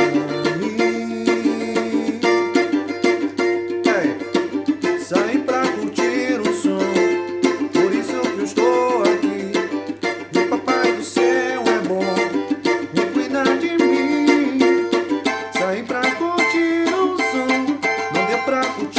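Music with a small strummed string instrument, such as a cavaquinho, and dense percussion strokes.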